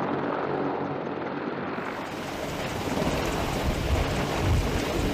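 AH-64 Apache helicopter running on the ground with its rotors turning: a steady engine and rotor drone. About two seconds in, the sound changes to a rougher low rumble with wind buffeting the microphone.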